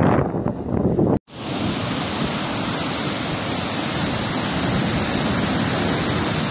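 Gusty wind buffeting the microphone over a flooded river, cut off abruptly about a second in; then a steady rush of muddy floodwater pouring through a breach in an earthen embankment.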